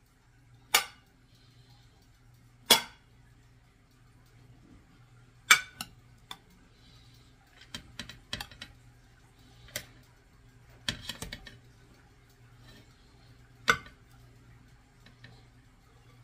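A stainless steel measuring cup clinking and knocking against a glass mixing bowl and a metal tray as cooked rice is scooped out and broken up. There are sharp single knocks every second or few, with a few quicker clusters in between.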